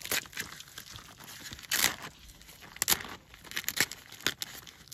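A Dangote cement sack being torn open by hand: a series of short, irregular tearing and rustling sounds, the loudest about two seconds in.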